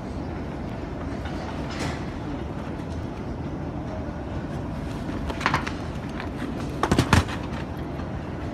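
Airport baggage carousel running with a steady rumble. There are a couple of knocks about five and a half seconds in, and a louder clatter of several knocks about seven seconds in as luggage bumps on the moving belt.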